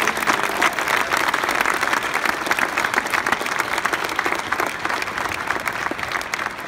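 Large audience applauding: the dense, steady patter of many hands clapping, easing off slightly near the end.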